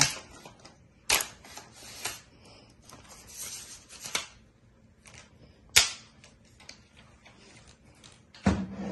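A Joilcan camera tripod being handled: sharp plastic clicks and snaps from its leg locks and fittings as a leg is worked and pulled out, about five clicks spread out, the loudest a little past the middle, with a brief rustle of handling around three to four seconds in.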